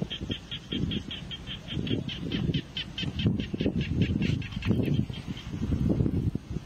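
A small animal's rapid, high chirping call, about six or seven even pulses a second, stopping about five seconds in, over irregular low rumbling noise.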